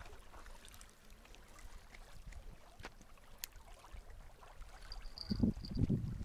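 Faint steady outdoor noise with a few light clicks. About five seconds in, a louder low rumble lasting about a second.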